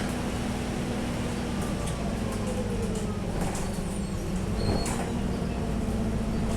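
Alexander Dennis Trident double-decker bus's diesel engine running steadily, with a high-pitched turbocharger whistle over it and light rattles. The whistle comes and goes, and a lower tone falls in pitch about halfway through.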